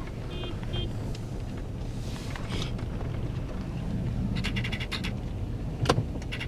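Steady low rumble of a car's engine and road noise heard from inside the cabin while creeping behind a flock of sheep and goats. A few short, high calls come about half a second in and again past the middle, and there is a sharp knock near the end.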